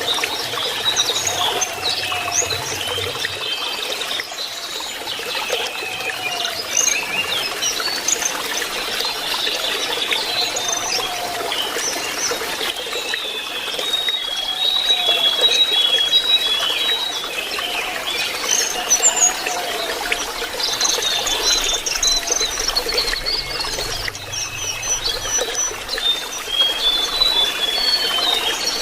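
Lesser shortwing singing a fast, high, twittering and warbling song over trickling running water. About halfway through and again near the end, the song breaks into runs of short, even notes.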